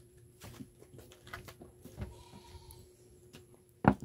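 Handling noises from opened cacao pods: scattered soft clicks and knocks as the pods are held and moved, with one sharp knock near the end, the loudest sound, as a pod is brought up to the mouth.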